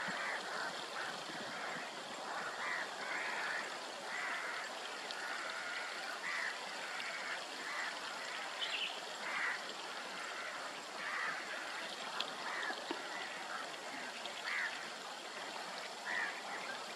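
Short animal calls repeating irregularly, about once or twice a second, over a steady hiss like running water.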